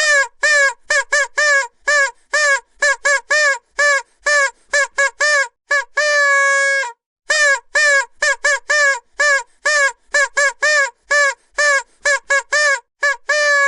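Vuvuzela blown in rapid short blasts on one buzzy note, about two to three a second, each blast sagging in pitch as it cuts off. A longer held blast of nearly a second comes about six seconds in, and another near the end.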